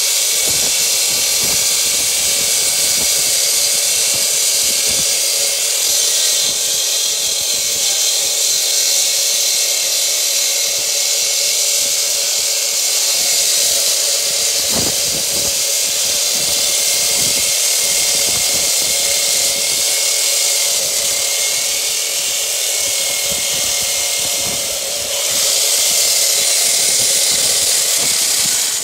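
Electric concrete saw running under load, its blade cutting steadily through a concrete foundation with a loud, high whine and hiss. The saw cuts off at the very end.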